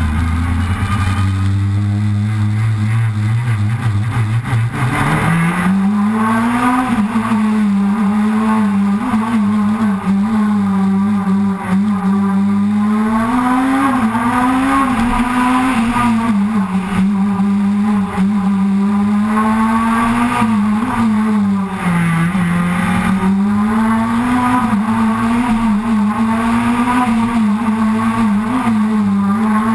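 Proton Super 2000 rally car's naturally aspirated two-litre four-cylinder engine heard from on board. It pulls low and steady for the first few seconds, then revs hard, its pitch climbing and dropping again and again with gear changes and lifts for corners.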